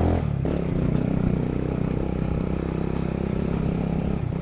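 Motorcycle engine running steadily while the bike is ridden off-road, with a brief change in the engine note just after the start.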